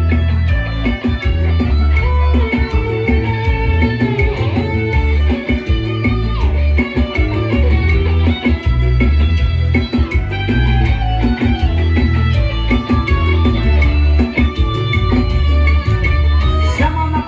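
Band music: an instrumental passage led by electric guitar over bass guitar, with a steady beat.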